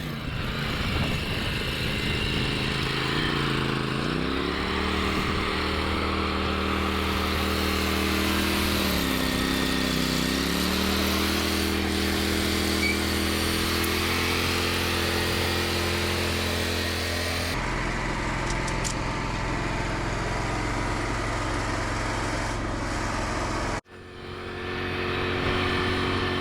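Engine of heavy machinery running while a log is loaded, its pitch rising as it is revved up under load, dipping and rising again. The sound changes abruptly partway through and drops out for a moment near the end.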